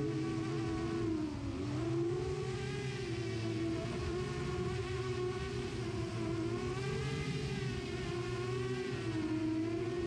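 Motors and propellers of a Darwin 7-inch FPV quadcopter whining, as heard through its own onboard camera, the pitch wavering up and down as the throttle changes.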